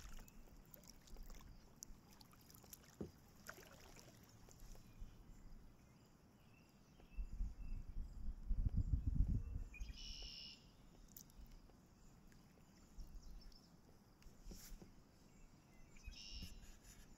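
Kayak paddling on calm water: quiet paddle strokes and water movement. A low rumble swells and is loudest about eight to nine seconds in, and two short high chirps come near the middle and near the end.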